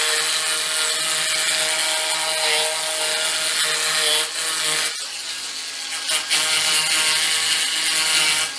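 A Bosch Universal Brush cordless power scrubber runs with its spinning scouring pad pressed on a soap holder: a steady motor whine under a scrubbing hiss. It dips briefly a few times around the middle as the pad shifts on the surface.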